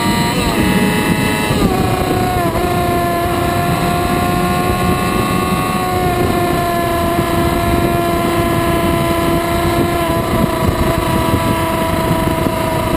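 Yamaha R6's inline-four engine running at high revs at speed, with a heavy rush of wind noise. The engine note dips a few times in the first three seconds, then holds and sinks slowly as the bike eases off from about 220 to 195 km/h.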